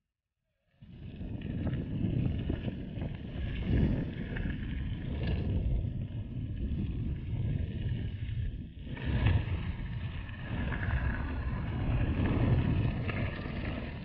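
Wind buffeting a handlebar-mounted action camera's microphone over the rumble and rattle of mountain bike tyres riding a dirt road. It starts a moment in, after a brief gap of silence.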